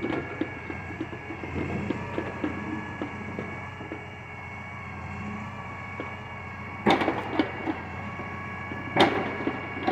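Log loader on a logging truck running steadily with a constant hydraulic whine, with scattered light clunks and two loud knocks, about seven and nine seconds in, as logs are set down on the load.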